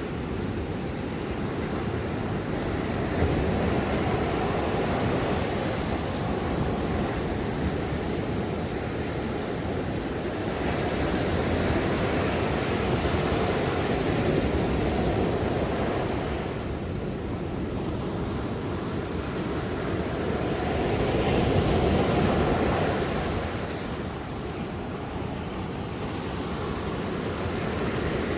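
Ocean waves breaking and washing on a shore, a steady surf rush that swells and eases every several seconds.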